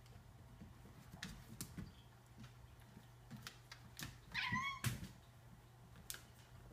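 A cat lets out one short meow about four seconds in, over a few faint scattered clicks.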